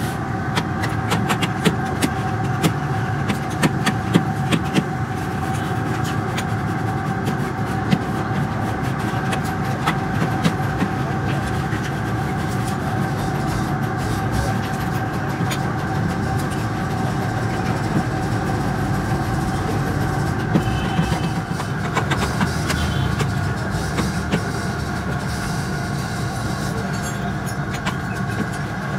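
Steady mechanical drone of workshop machinery with a constant hum, overlaid with frequent light clicks and taps of lead battery grids being stacked and trimmed by hand.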